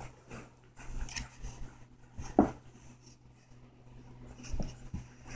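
Four-week-old puppy giving one short, sharp yelp about two and a half seconds in, with a few fainter small sounds near the end.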